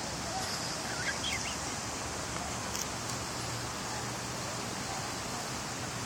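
Steady rush of flowing creek water, with a couple of faint bird chirps about a second in.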